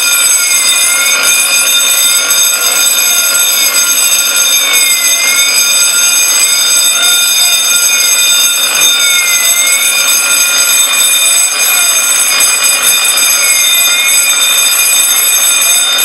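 Fire alarm sounders going off together after the beam smoke detector has been tripped in a smoke test. There is a steady shrill tone, with a second tone that sweeps down and back up about every two seconds.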